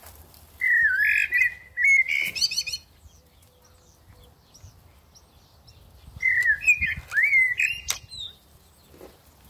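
Recorded bird calls played from a phone through a small speaker as a hunting lure: two loud bouts of warbling, gliding chirps, one starting about half a second in and a similar one about six seconds in. A short sharp click near the end of the second bout.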